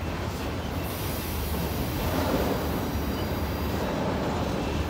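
Freight train's loaded auto rack cars rolling past close by, wheels and trucks rumbling steadily on the rails. From about a second in until near four seconds a high-pitched hissing squeal from the wheels on the curve joins in.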